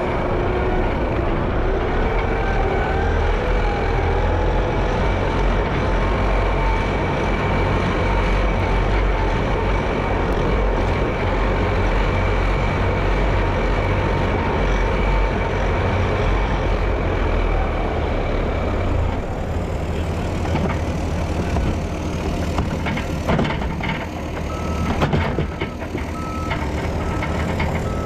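Heavy road-paving machinery running steadily. Near the end a reversing alarm beeps repeatedly over the engine noise.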